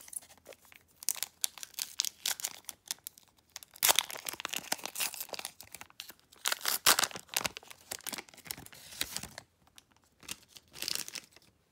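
Trading-card pack wrapper being torn open and crinkled: bursts of sharp crackling, loudest about 4 and 7 seconds in, dying down near the end apart from one short rustle.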